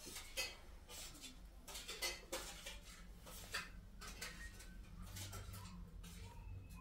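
Faint, scattered light clicks and knocks, several to a second, over a low steady hum.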